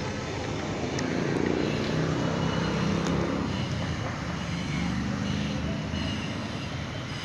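Steady low rumble of motor traffic, with engine tones swelling about a second and a half in and again around five seconds.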